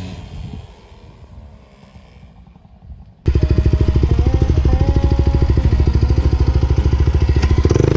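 Off-road motorcycle engine idling close to the microphone, a fast, even pulsing that cuts in abruptly about three seconds in after a quieter stretch.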